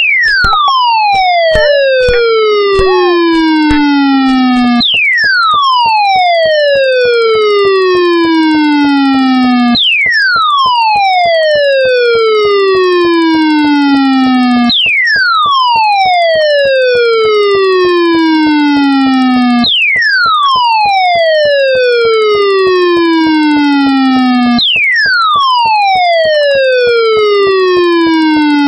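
Electronic siren-like alert tone sliding steeply down in pitch over about five seconds, then jumping abruptly back to the top and falling again, six times over. A rapid, even clicking runs through it. This is the deliberately broken alert sound of a mock Emergency Alert System warning.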